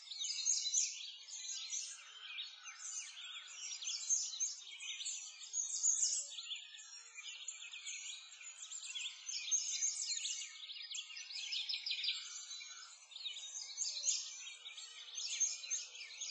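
A chorus of many birds chirping and singing at once, short high overlapping calls running on without a break.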